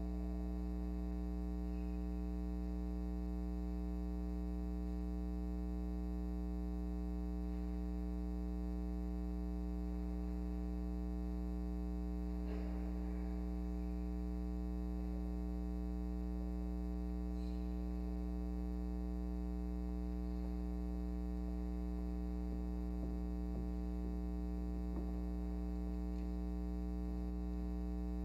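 Steady electrical mains hum with a stack of overtones, unchanging throughout, with a few faint knocks now and then.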